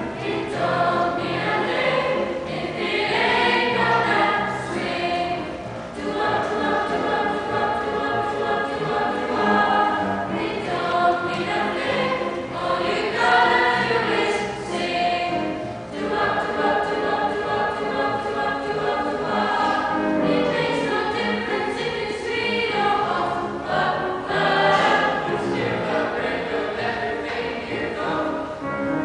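Mixed youth choir singing in harmony, with sustained chords and short breaks between phrases about six and sixteen seconds in.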